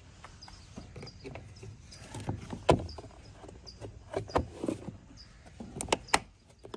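Hard plastic dry box on a kayak being shut and handled, giving a string of plastic clicks and knocks. The loudest knock comes a little under three seconds in, with two more sharp clicks near the end.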